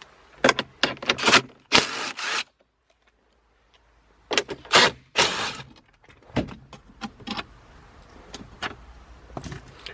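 Cordless drill with a 10mm socket spinning out the center-console bolts of a Honda Accord in short bursts, with a pause in the middle and clicks and clinks of the bolts and socket between and after the runs.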